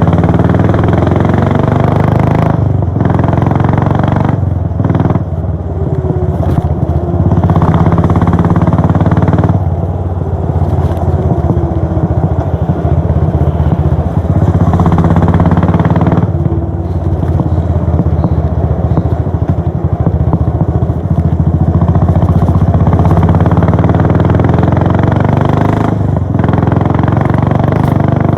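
Royal Enfield Bullet 500's single-cylinder four-stroke exhaust on the move, a steady low thump whose pitch climbs and falls as the throttle opens and eases. It dips briefly several times through the stretch.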